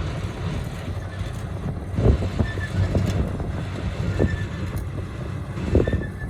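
Diesel engine of a rice combine harvester running steadily, with several louder knocks and thumps from the machine at uneven intervals.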